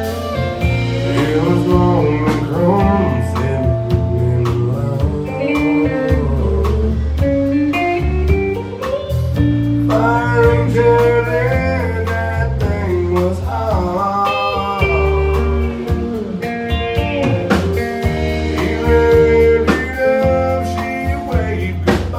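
Live country band playing an instrumental break: a lead guitar solo with bending notes over acoustic guitar, bass guitar and drums.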